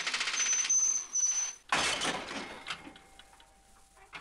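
A pneumatic hand tool working on a riveted metal aircraft frame part, running in rapid pulses with a high whine for about a second and a half. Then comes one loud, sudden clattering noise with a rumbling tail, followed by a few light scattered clicks.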